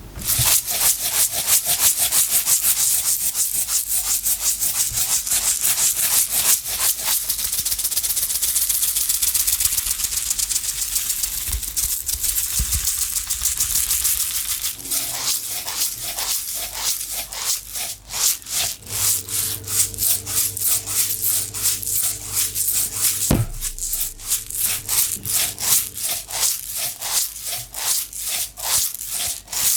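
Small loose objects rattling in a container as it is shaken: a dense, fast rattling hiss for about the first half, then slower, separate shakes about three a second.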